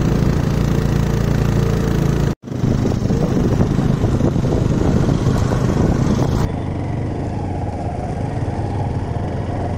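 Small motorcycle and scooter engines running at low speed on a wet road, with a brief dropout about two seconds in. About six and a half seconds in, the sound turns into the steadier, more muffled engine hum of the rider's own Honda Hornet heard from its handlebar camera.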